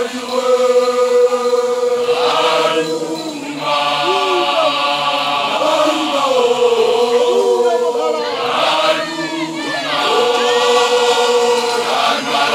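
Group of voices chanting together in long held notes that slide in pitch, with short breaks between phrases: the song of newly graduated Basotho initiates (makoloane).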